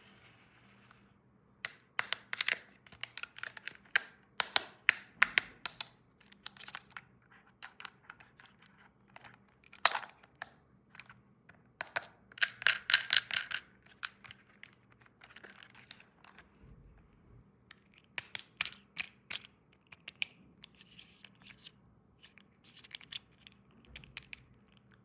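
Small plastic toy pieces and packaging handled up close: irregular sharp clicks and taps with short bursts of rustling, and a dense rattling flurry about halfway through.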